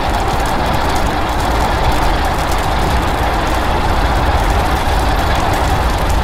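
A monster sound effect for a dragon character: a loud, steady rushing noise over a deep rumble, without break or change.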